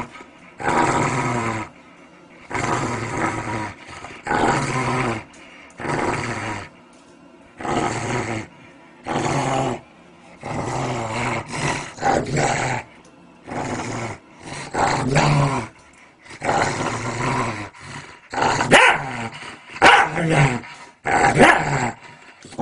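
A dog growling and barking in short bursts, one after another about once a second.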